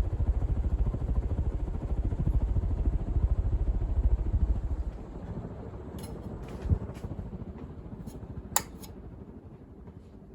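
Fasco Heat Cycler ceiling fan with heavy plastic blades running at top speed, on freshly replaced bearings. Its moving air gives a low, evenly pulsing rumble that eases off about five seconds in, and there are a few sharp clicks in the second half.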